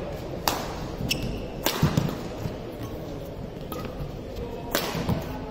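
Badminton rackets striking a feather shuttlecock during a rally: sharp cracks, three loud ones in the first two seconds and another about three seconds later.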